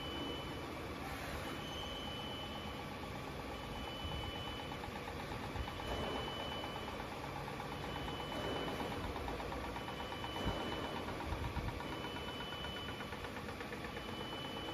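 Double-turret slant-bed CNC lathe running with its spindle and chuck spinning a shaft workpiece during a turning cut: a steady machine hum, with a high tone that sounds for about a second at a time with short breaks between, and a few brief louder bumps partway through.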